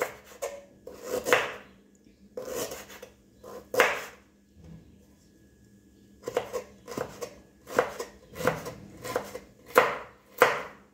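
Kitchen knife slicing unpeeled ginger root on a wooden cutting board, each cut ending in a knock of the blade on the board. A few slow cuts, a short pause about halfway, then a quicker run of cuts.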